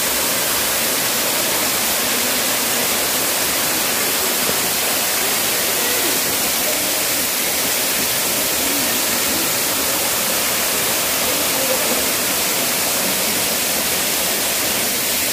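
Batlag Falls, a waterfall, pouring with a loud, steady rush of water that does not change.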